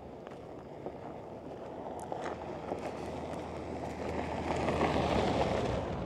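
Wind blowing across the microphone with a low rumble, building into a gust over the second half and easing off near the end, over light crunching footsteps on a gravel road.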